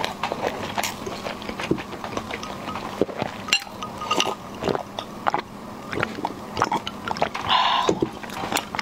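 Close-miked mouth sounds: chewing a mouthful of rice with wet clicks, then swallowing water drunk from a glass. A short breathy burst comes near the end.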